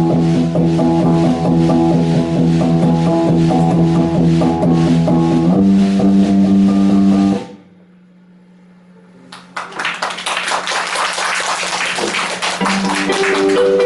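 Live rock band with guitar and drums playing sustained chords, then cutting off abruptly about halfway through, leaving a low note hanging for a couple of seconds. The drums and guitar then crash back in loudly, with clear notes returning near the end.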